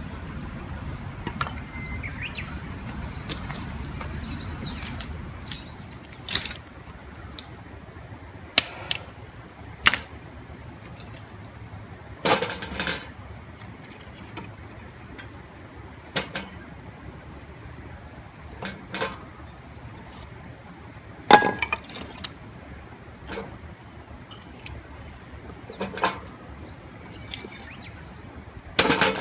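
Wood campfire crackling, with sharp pops every few seconds. A bird chirps a few times in the first few seconds.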